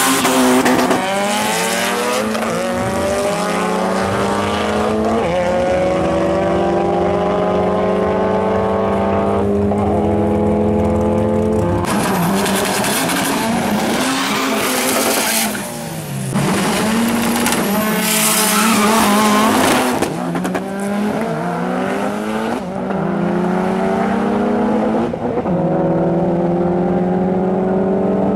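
Mitsubishi Lancer Evolution's turbocharged four-cylinder engine at full throttle on a drag strip, its pitch climbing through each gear and dropping at every shift, several times over. Tyre squeal from a burnout comes in the first second or so.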